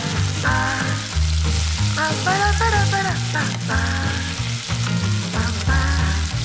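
Chicken drumsticks sizzling as they brown in oil in a hot pot, with background music playing over it.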